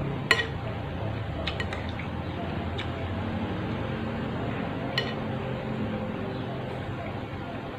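Eating sounds from a bowl of bakso soup: a handful of short, sharp clinks of cutlery against the bowl, spread irregularly, over a steady low background hum.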